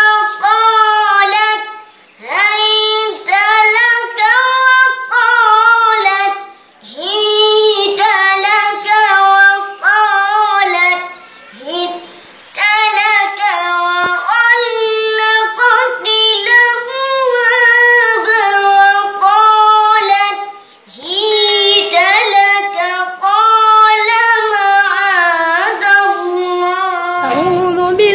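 A young girl reciting the Quran in a high, melodic chanting voice, long drawn-out phrases with short pauses for breath between them. Near the end another child's recitation cuts in.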